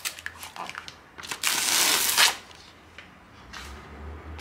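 Paper backing liner from adhesive sheets being peeled off and handled: light crackles at first, then about a second and a half in, a louder stretch of rustling and crumpling lasting about a second.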